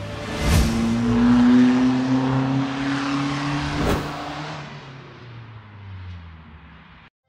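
Channel intro sound effect: a car engine revving with a rushing whoosh, its pitch climbing slowly. There is a sharp hit about half a second in and another about four seconds in, then the sound fades and cuts off abruptly just before the end.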